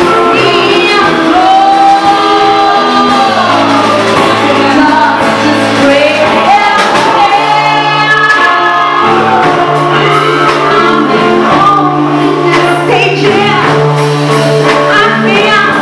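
A live band playing, with electric guitars, bass and drums under a woman singing long, gliding sung lines; loud and echoing as in a large room.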